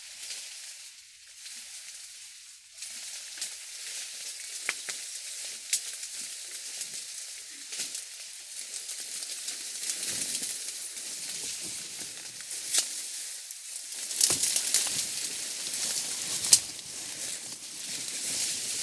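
Dry reeds and tall grass rustling and crackling, with sharp cracks of stalks, as a person pushes a bicycle through a dense reed bed. It grows louder and busier in the last few seconds as he comes close.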